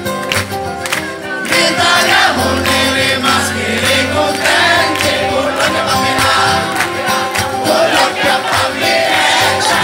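Live acoustic band music: acoustic guitars strummed in a steady rhythm, with voices singing over them.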